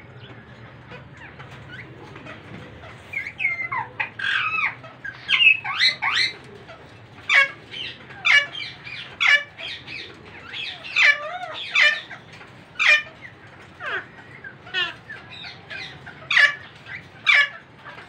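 Indian ringneck parrots mating, giving a string of short, sharp calls about once a second, with a busier flurry of calls between about three and six seconds in.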